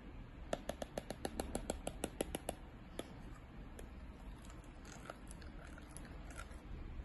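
Stylus nib clicking on an iPad's glass screen: a fast, even run of sharp taps, about nine a second for two seconds, as the pencil is stroked back and forth, then a few single taps.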